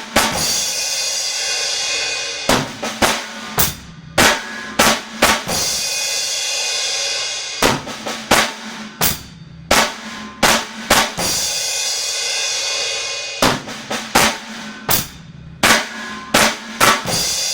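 Drum kit playing a short beginner fill derived from the six-stroke roll: quick snare strokes with hi-hat and kick, repeated several times, each run ending on a cymbal that rings out for about two seconds. The recording is harsh and poor in quality.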